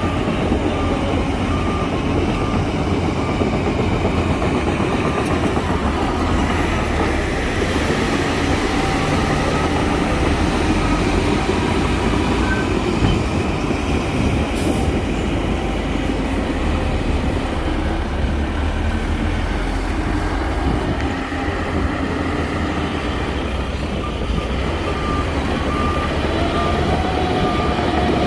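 Heavy diesel earthmoving machinery working steadily, a continuous loud engine and machine noise with no pauses.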